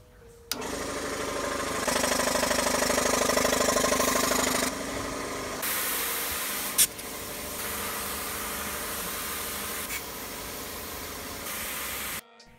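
Electric air compressor running after being switched on at the wall, a loud steady machine noise with a rapid even pulse. The level jumps up and down several times, a sharp click comes about seven seconds in, and the noise cuts off suddenly shortly before the end.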